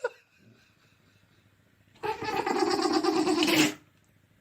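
A person laughing in one drawn-out stretch of nearly two seconds, starting about two seconds in after a quiet gap.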